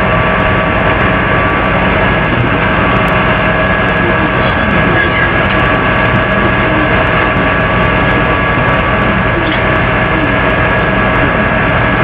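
Steady loud background noise with a constant hum made of several steady tones, with no distinct events.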